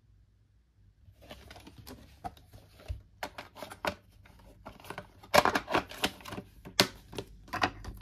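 A VHS cassette being pushed into a plastic clamshell case and the case handled shut: a run of plastic clicks, knocks and rattles starting about a second in, with the sharpest, loudest clicks in the second half.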